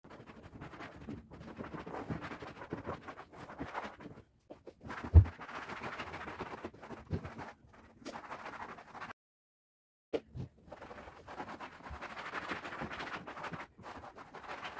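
Household cleaning sounds: scrubbing and wiping with a scratchy, rubbing noise, in short stretches broken by brief silences, with one sharp knock about five seconds in.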